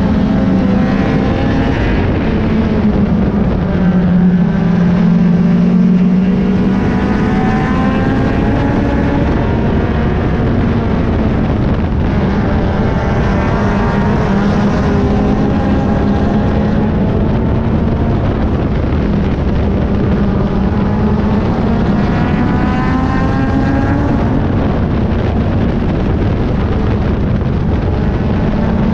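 Race car engine heard from on board at racing speed. It drones steadily underneath, and its pitch climbs several times, every six to eight seconds or so, as it accelerates.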